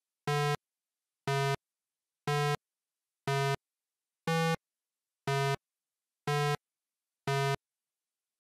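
Short 8-bit synthesizer blips, eight of them, one about every second, each the same low tone with one slightly different in the middle: a video-game style step sound for a slowly walking cartoon tortoise.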